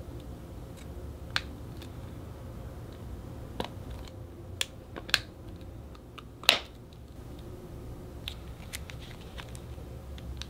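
Clear plastic phone case clicking and snapping as a smartphone is pressed into it: a handful of sharp, separate clicks, the loudest about six and a half seconds in. A steady low hum lies underneath.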